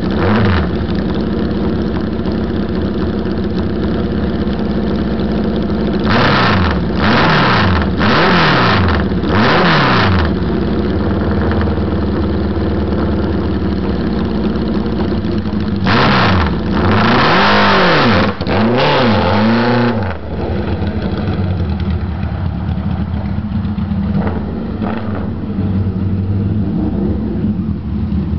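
1973 MV Agusta 750S Magni's inline four-cylinder engine idling and blipped on the throttle. There are four quick revs about six to ten seconds in, then a longer rev with more blips around sixteen to twenty seconds. After that it settles into a steady, slightly quieter running sound.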